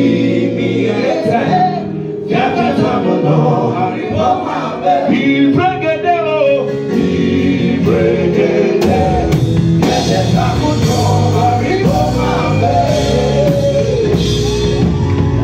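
Live gospel band performance: a male lead singer and backing vocalists singing over a drum kit and keyboard with a steady beat. The bass gets heavier about ten seconds in.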